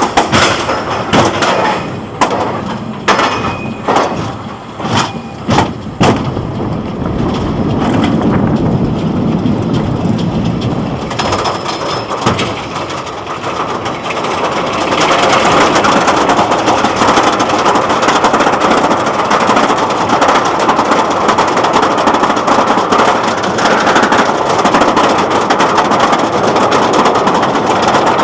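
Roller coaster ride heard from onboard: a run of sharp, uneven clacks in the first few seconds, then a rumble, then from about halfway a loud steady rush of wind and track noise as the train runs the course.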